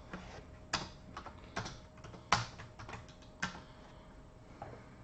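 Typing on a computer keyboard: an irregular run of key clicks with a few harder strokes, thinning out to a stray click after about three and a half seconds.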